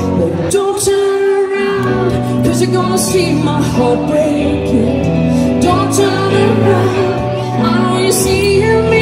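Live pop music through a concert PA: a woman sings a melody into a microphone over sustained bass and synth chords, with occasional cymbal hits.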